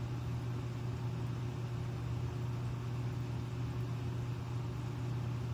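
Steady low mechanical hum over an even hiss, unchanging in pitch and level.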